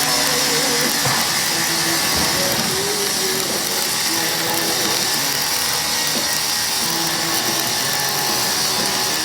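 Self-shielded flux-cored arc welding with NR-305 Innershield wire: the arc crackles and sizzles steadily as the bead is run.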